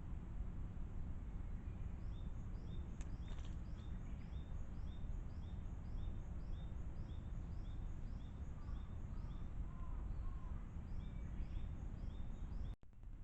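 Outdoor ambience picked up by a trail camera's microphone: a steady low rumble with a faint high chirp repeating about twice a second and a few soft bird calls. The sound cuts out abruptly for a moment near the end.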